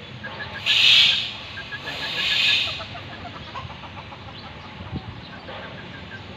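Dwarf bantam chickens making soft clucking calls. Two loud buzzing hiss bursts come in the first three seconds, with quick runs of short high chirps.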